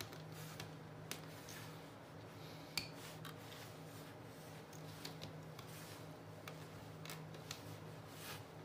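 Thread being wound around the small nails of a string-art board: faint irregular clicks and light rubbing as the thread catches and slides on the nail heads. The sharpest click comes about three seconds in.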